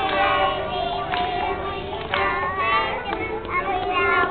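A children's English action song: child singing over music.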